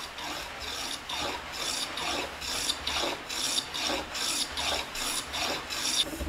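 Small hand plane taking quick short strokes along the edge of an oak workpiece, about two a second: the iron shaving the wood with a dry rasping scrape.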